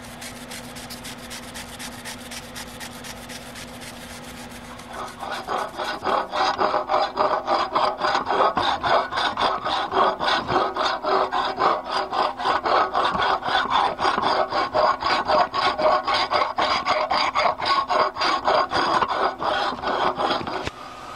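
Hand-cleaning a corroded 2-inch quad videotape reel. Light brush strokes come first, then from about five seconds in, louder, rapid back-and-forth scrubbing with a cloth against the reel's metal hub, about three strokes a second, which stops just before the end.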